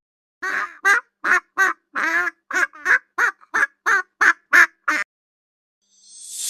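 A duck quacking, about a dozen short quacks in quick succession, then a pause. A hiss begins to rise near the end.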